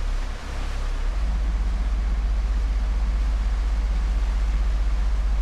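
A cruising boat's diesel engines running under way, a low steady drone that settles into a fast, even throb about a second in, over the rush of the wake water and wind.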